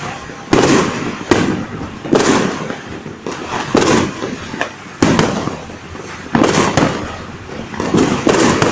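Fireworks going off: a string of about nine loud bangs, roughly one a second, each fading away before the next.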